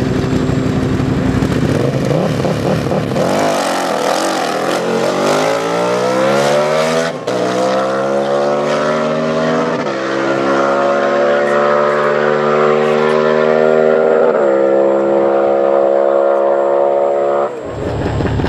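Buell 1125R's 1125 cc V-twin breathing through a Barker slip-on exhaust, running steadily at first and then accelerating hard from a standstill. The engine note climbs through the gears with three quick upshifts, and the sound breaks off abruptly near the end.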